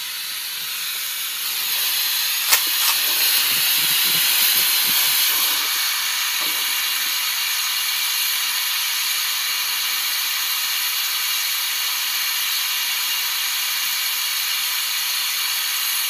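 Oxy-hydrogen gas welding torch flame hissing steadily. It grows louder about two seconds in as more oxygen is turned into the flame to make it hotter, and there is a single sharp click just after.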